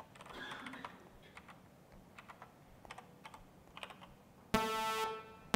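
Computer keyboard typing in short clicks. About four and a half seconds in, a software synthesizer tone starts: two sawtooth oscillators at 220 and 221 Hz, slightly detuned, switched on and off once a second by a 1 Hz square wave. It gives a half-second blocky pulse, with the next one starting at the very end.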